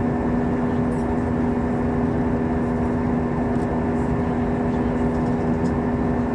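Airplane cabin noise in flight: the engines and airflow make a steady drone with a constant low hum.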